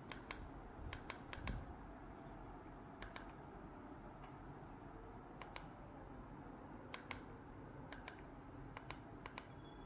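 Plastic buttons of a TV remote control clicking as they are pressed, a dozen or so sharp clicks at irregular intervals, some in quick pairs, over a low room hum.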